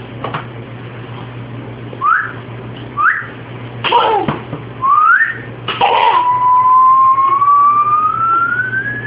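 A person whistling comic sound effects: three short upward-sliding whistles, then one long whistle that slowly rises in pitch over about three seconds. Short bursts of vocal noise come between them, one of them sliding downward.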